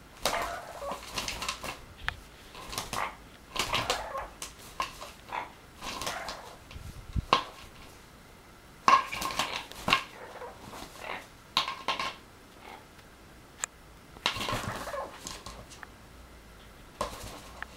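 A blue-fronted Amazon parrot attacks an empty plastic water bottle. The bottle crackles and knocks in irregular bursts as she bites and shoves it, with a few sharp, louder knocks, mixed with short sounds from the parrot herself.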